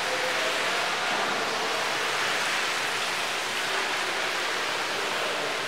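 Water running steadily from the taps of a mosque ablution area, where worshippers are washing: a constant rushing hiss.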